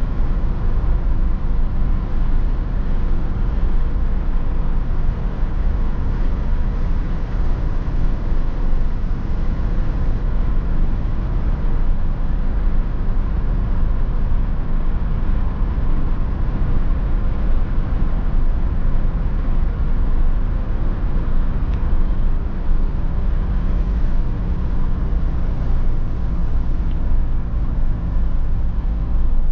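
Inside the cabin of a BMW E46 320d cruising at a steady speed: its 2.0-litre four-cylinder turbodiesel running with a steady low drone under constant tyre and road noise.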